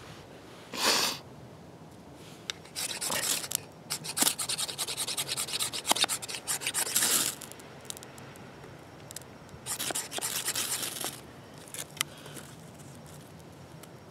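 A knife spine scraping a ferrocerium rod in quick rasping strokes to throw sparks into tinder. The strokes come in runs with pauses between: a short one about a second in, a long run through the middle, and another near the end.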